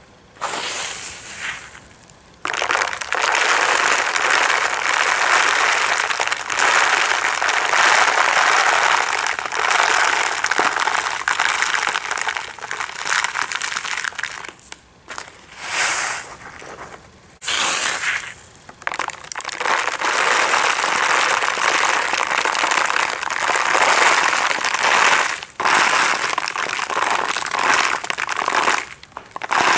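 Tiny aquarium gravel substrate being worked by hand: a dense, continuous crunching rattle of small stones shifting against each other, broken by a few short pauses.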